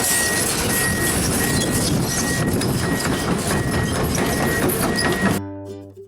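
Heavy earth-moving machinery running loudly, with clanks and a reversing alarm beeping steadily. It cuts off suddenly near the end, giving way to plucked-string music.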